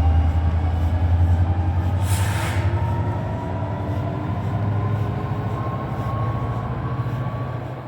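NJ Transit commuter train running by with a heavy low rumble and a whine that slowly rises in pitch, fading near the end. A brief hiss comes about two seconds in.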